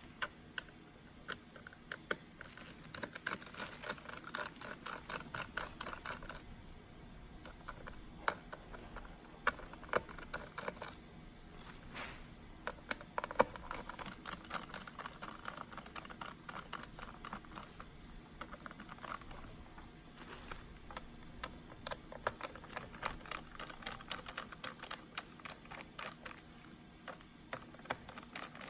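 Many light, irregular clicks and taps of hands working on a laptop's plastic case and parts.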